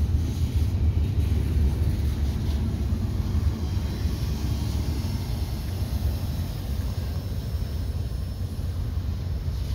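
Double-stack container cars of a CSX freight train rolling past on the rails: a steady low rumble that eases slightly as the end of the train goes by.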